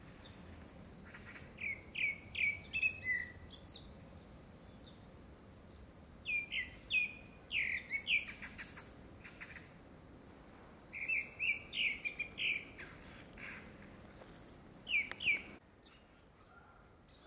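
Grey-backed thrush singing: four phrases of short, clear, falling whistles mixed with thin high notes, a few seconds apart. At this season it is taken to be a courtship song ahead of a second brood.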